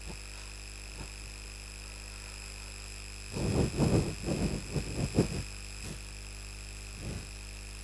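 Whiteboard being wiped clean by hand, a run of irregular rubbing strokes for about two seconds midway, over a steady electrical hum and whine.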